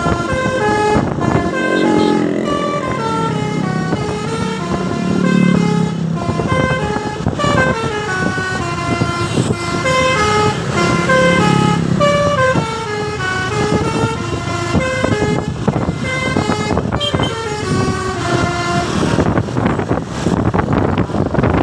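Basuri-type telolet bus horn playing a tune: rapid runs of short, stepped horn notes climbing and falling in repeated melodic patterns. The notes thin out near the end.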